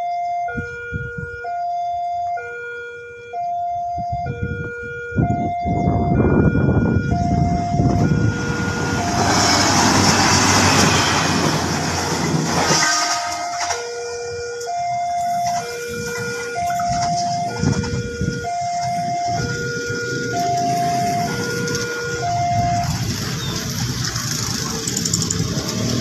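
Railway level-crossing warning signal sounding a two-tone electronic chime, alternating high and low tones, a little over a second per pair. In the middle a passing train's loud rushing rumble swells up and drowns the chime for several seconds, and then the chime returns.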